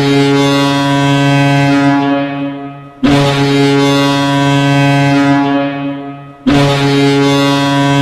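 Ice hockey goal horn sounding in long, loud blasts, each holding a steady chord-like tone for about three seconds before fading. A new blast starts about three seconds in and another at about six and a half seconds.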